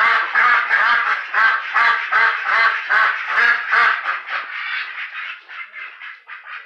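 Several ducks quacking in a rapid, repeated series, about three calls a second, loud at first and tapering off in the second half.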